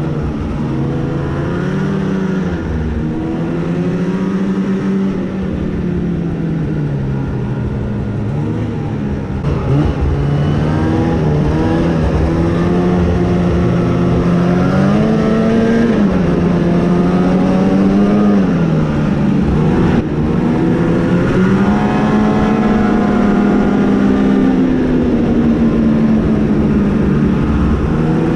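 Arctic Cat ZR 8000 RR snowmobile's two-stroke twin engine running under way. Its pitch rises and falls steadily as the throttle is eased and opened, with a few deeper dips and climbs.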